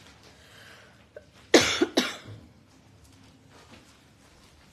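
A woman coughing twice in quick succession, about a second and a half in.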